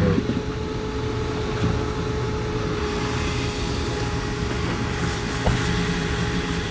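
Motor of dryer-vent cleaning equipment running steadily, a constant hum with a steady whine, while lint is cleared from a clogged vent line. A single sharp click about five and a half seconds in.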